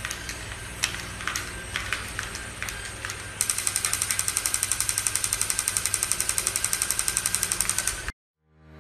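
Crawling toy soldier's wind-up or battery mechanism clattering in a fast, even rattle of well over ten clicks a second, starting about three seconds in and stopping abruptly near the end. Before it, a few scattered clicks and taps, over a steady low hum.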